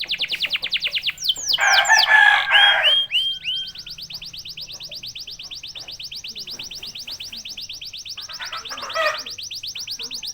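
Domestic canary singing: long, rapid trills of repeated high notes, broken about a second and a half in by a louder, harsher phrase with a few falling whistles, and by a short harsh burst near the end.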